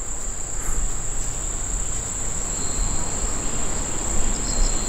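Insects chirring in a steady, unbroken high-pitched drone, over a low rumble.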